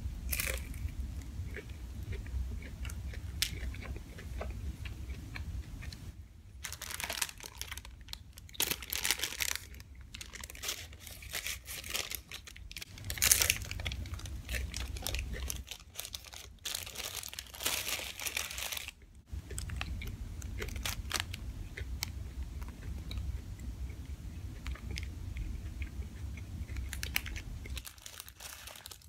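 Close-up eating sounds: crunchy bites and chewing of fried fast food, including a Jack in the Box taco bitten through its paper sleeve, with crinkling of the paper wrapper. The crunching and rustling come thick and loud in the middle of the stretch, with quieter chewing before and after.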